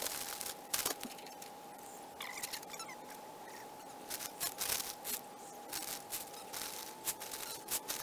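Sharp sand being scooped from a plastic sand bag and poured into the top of a clay chimney pot: the bag crinkles, with many irregular crackles and taps as sand falls and is packed around the copper coil's inner flue.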